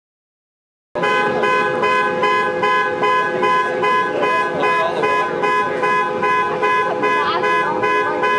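Car horn sounding continuously, a chord of several steady notes that pulses about two or three times a second. It starts abruptly about a second in.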